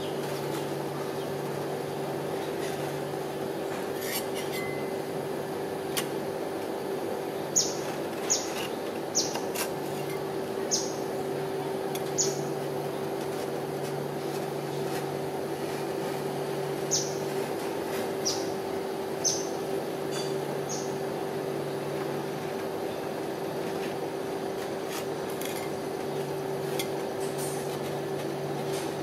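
Steady electric hum of a rolled-ice-cream cold-plate machine's refrigeration unit running, with a lower hum that cuts in and out several times. About a dozen short, sharp, high-pitched ticks are scattered over it, mostly in the middle.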